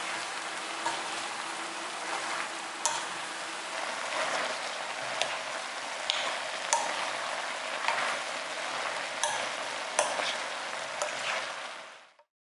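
Sliced onions and shishito peppers sizzling in a wok as they are stir-fried with a wooden spoon, with sharp clicks about once a second as the spoon knocks the pan. The sizzle cuts off suddenly near the end.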